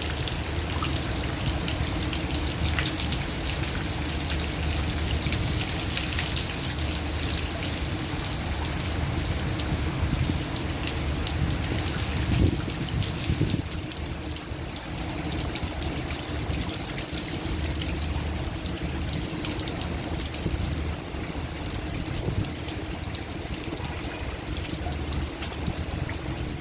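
Heavy rain falling steadily, with many separate drop hits over a dense hiss and a low rumble beneath. It eases slightly about halfway through.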